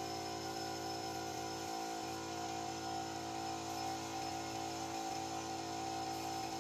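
Steady hiss of a gravity-feed spray gun atomising lacquer onto a wooden cabinet, over a constant machine hum of several steady tones.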